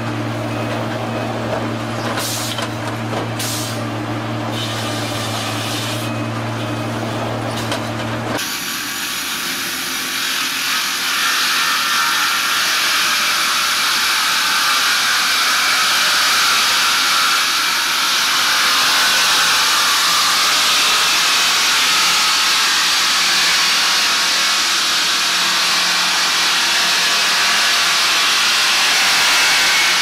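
Sawmill machinery runs with a steady low hum. About eight seconds in, the sound switches to a multi-blade circular rip saw cutting boards, a louder, higher-pitched steady rushing noise of blades in wood.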